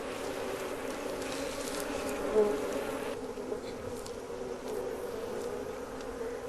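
A swarm of angry African honeybees buzzing around their opened hive, a dense steady hum that swells briefly about two and a half seconds in.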